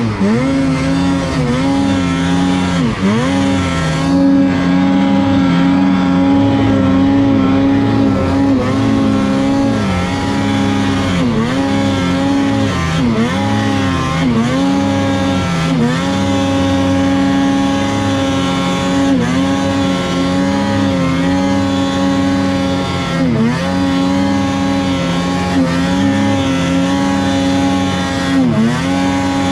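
Naturally aspirated Ski-Doo Summit 850's two-stroke twin engine pulling at wide-open throttle up a long climb in deep snow. It holds a steady high pitch, with brief dips and quick recoveries in revs every few seconds.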